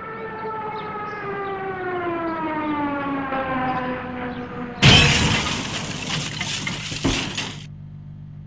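Cartoon sound effects: a long tone sliding slowly down in pitch, then about five seconds in a loud shattering crash, with a second smaller hit about two seconds later. A low steady hum remains near the end.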